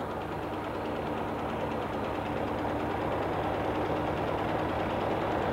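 Gasoline walk-behind rotary lawn mower running steadily while it is pushed across the grass, cutting it.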